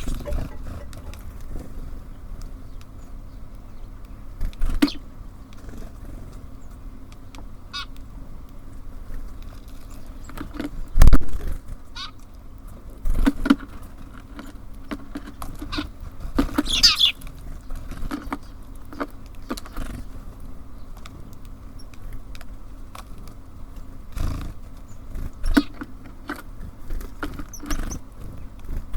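Birds at a feeder: scattered taps and knocks from pecking and landing, one loud knock about 11 seconds in, and a short high call around 17 seconds.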